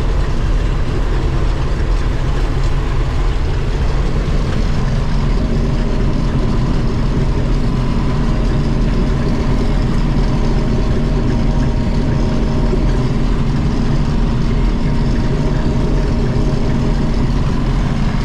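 Heavy diesel engine of harvest machinery running steadily, a constant drone whose pitch settles into a steadier hum about four to five seconds in.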